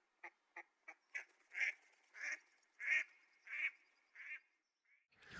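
Mallard ducks quacking: a run of about a dozen quacks, short and quick at first, then longer and louder around the middle, fading near the end.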